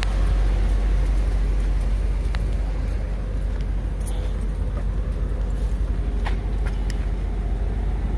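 1997 GMC box truck's 5.7-litre (350) gasoline V8 running steadily at idle, with a few light clicks over it.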